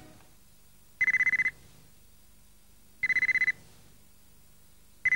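Three short electronic trilling beeps about two seconds apart, each lasting half a second at one high pitch, like a telephone ring.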